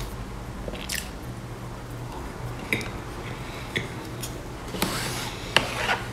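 A person biting into and chewing a piece of soft cream-topped cake, close to a clip-on microphone: wet, squishy chewing with short mouth clicks about every second or so.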